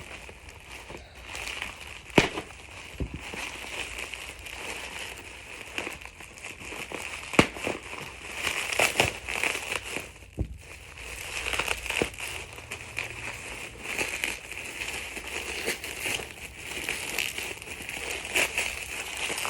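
Packaging being unwrapped by hand: continuous crinkling and rustling, with several sharp snaps and clicks, the loudest about two and seven seconds in.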